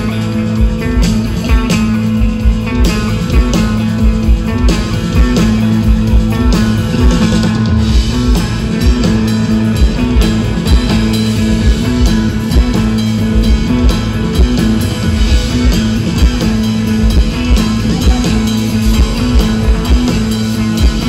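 Live rock band playing with a steady beat: Telecaster-style electric guitar, bass guitar and Ludwig drum kit.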